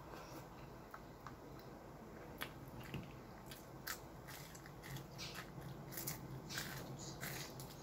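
A person chewing and crunching small fried fish eaten by hand, with sharp mouth clicks and smacks that come thicker in the second half.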